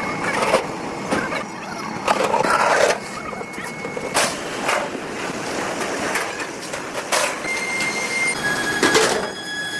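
Heavy industrial shop noise: a steady mechanical din broken by irregular sharp metallic clanks and knocks, with a high steady whine setting in near the end.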